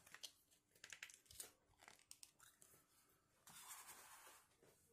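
Faint handling of a plastic figure and its plastic stand: small clicks and knocks as the foot peg is pushed into the base, and about three and a half seconds in a soft rustle lasting about a second.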